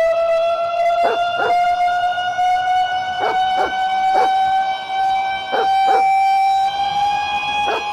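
Tsunami warning siren of an emergency alert: one steady tone with overtones, slowly rising in pitch, with a small step in its sound about seven seconds in. Short sharp sounds, mostly in pairs, cut across it every second or two.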